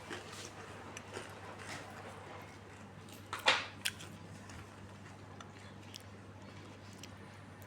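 Close-up chewing and crunching of a crunchy snack, with scattered small crackles and one loud crunch about three and a half seconds in.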